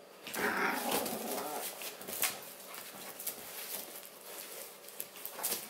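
Toy terrier puppy giving a short vocal sound, starting about half a second in and lasting about a second and a half, as it plays with a soft fabric toy. Light rustles and scuffs of paws and toy on the sofa follow.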